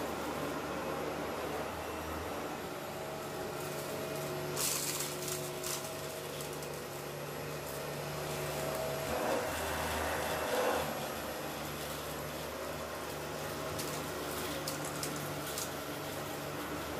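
Dyson ball upright vacuum cleaner running as it is pushed back and forth over a shag rug, its low hum shifting with the strokes. A few brief crackles, about five seconds in and again near the end, are debris being picked up.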